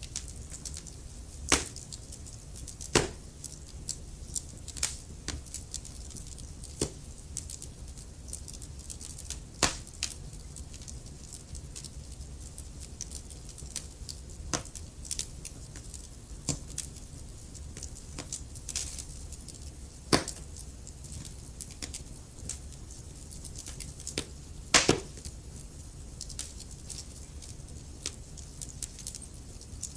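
Wood fire burning in a fireplace: logs crackling with irregular sharp pops over a low steady rumble of the flames, the loudest pop about 25 seconds in.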